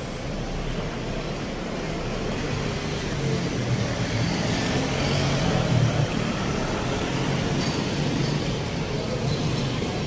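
Street traffic going past: vans and a motorcycle driving by with their engines running, loudest about halfway through.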